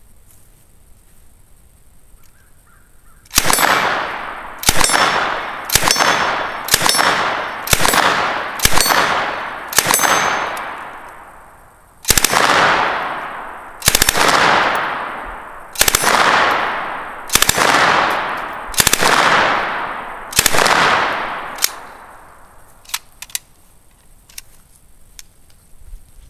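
9mm Uzi submachine gun firing on full auto in about fourteen short bursts, each trailing off in an echo. The bursts start about three seconds in, come about once a second at first, then every one and a half to two seconds. A few light clicks of the gun being handled follow near the end.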